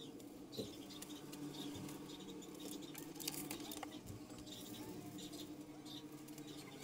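Paper rustling and crinkling as sheets are handled and shuffled, with many small scattered ticks over a steady low hum.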